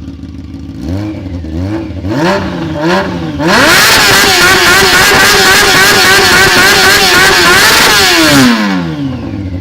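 Honda CBR 600 F inline-four motorcycle engine with the exhaust cut open and no silencer, idling, blipped four times, then held at high revs for about five seconds before the revs drop back to idle.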